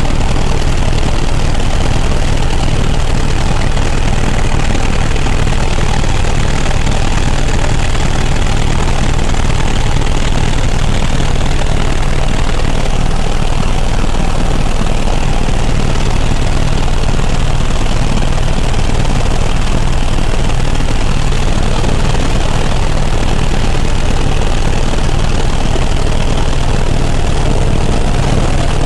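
Helicopter in flight, its engine and rotor running at a steady, unbroken loud drone dominated by a deep low rumble.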